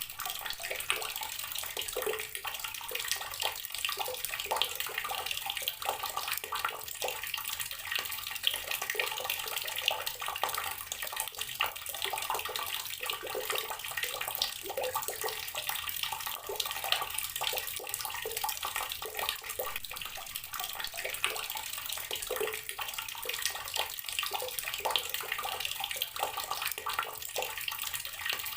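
Tap water pouring steadily into a container of water, a continuous splashing stream with small bubbling crackles and no change in flow.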